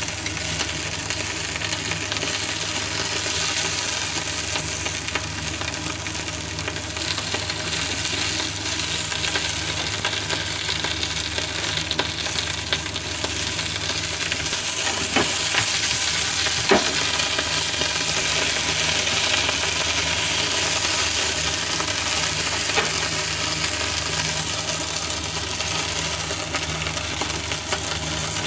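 Negi (Japanese long onion) and green pepper pieces sizzling in oil in a frying pan, steadily, as wooden chopsticks turn them, with two sharp clicks of the chopsticks against the pan about halfway through.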